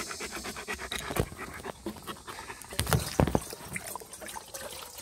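German Shepherd panting fast for the first couple of seconds, then a few dull knocks about three seconds in.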